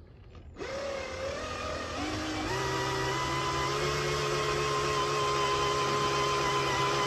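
Handheld cordless drill starting about half a second in and running steadily with a left-hand bit, drilling into a broken steel thumb screw. Its speed steps up twice in the first few seconds. The left-hand bit turns backwards in the hope that it catches and backs the broken screw out.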